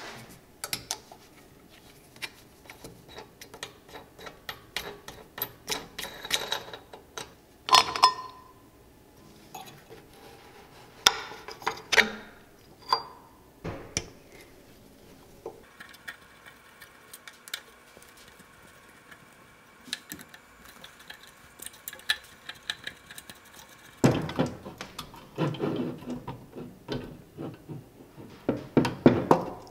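Hand disassembly of a Briggs & Stratton 5 HP flathead engine: scattered metallic clicks, clinks and knocks of parts and a screwdriver. Near the end comes a denser run of knocks and rattles as the sheet-metal fuel tank is handled.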